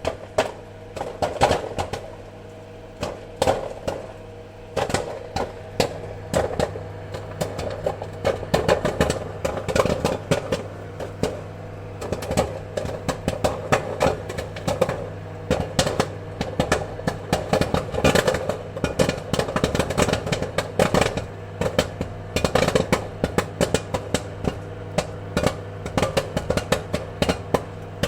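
Popcorn kernels popping: irregular sharp pops that come faster and closer together after the first several seconds, over a steady low hum.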